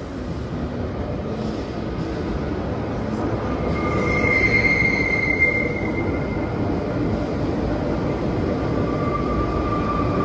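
BLS S-Bahn electric multiple unit rolling into the platform and slowing, a steady rumble that grows louder. A high squeal comes from the wheels or brakes from about four to six seconds in, and a lower squeal sets in near the end.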